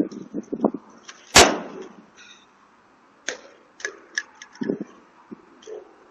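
An object striking a doorbell camera: one loud, sharp hit about a second and a half in, followed by several lighter taps and knocks.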